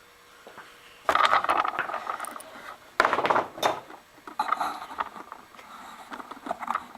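Rustling and scraping handling noises in a small room, coming in several irregular bursts, the loudest about a second in and again about three seconds in.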